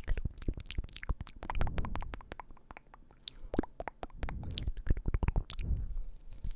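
Close-miked ASMR mouth sounds: a quick, irregular run of lip and tongue clicks, with a short lull about halfway through.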